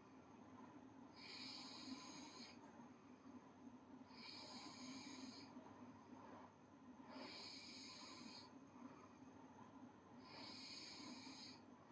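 A girl snoring faintly in her sleep, a breathy snore about every three seconds, four in all.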